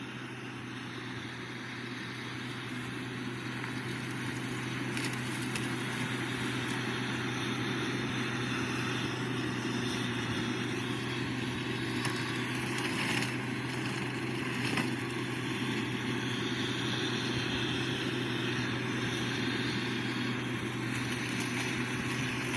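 A vehicle or machine engine running steadily with a low, even hum, getting gradually louder over the first few seconds and then holding.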